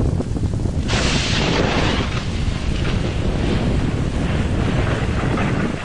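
Wind rumbling on the microphone, with a loud rush of water that starts suddenly about a second in and slowly eases off.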